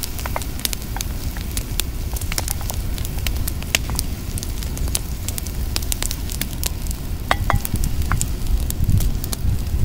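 Mashed eggplant frying in oil in a cast-iron skillet over a wood fire: steady sizzling with many sharp pops and crackles throughout.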